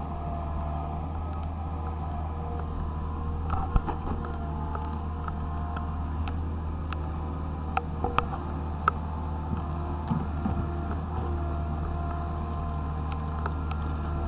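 Wheeled excavator's diesel engine running steadily, with a few short clicks and knocks scattered through it.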